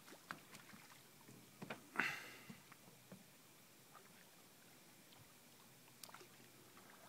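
Mostly quiet water with a few faint, short splashes and light taps; the loudest comes about two seconds in, with smaller ones scattered before and after.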